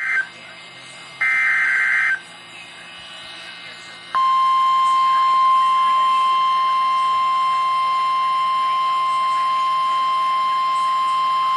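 NOAA Weather Radio alert tones from a weather radio. First comes the end of the digital SAME header: two short buzzy data bursts, one right at the start and one of about a second shortly after. About four seconds in, the steady single-pitched 1050 Hz warning alarm tone starts and holds, the signal that a warning-level alert is being broadcast.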